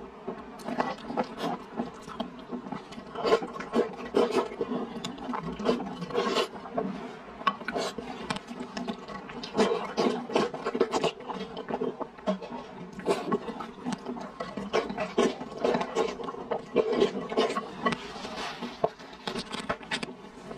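A person slurping rice noodles in mapo tofu sauce and chewing, close to a clip-on microphone: irregular wet slurps and short mouth clicks and smacks.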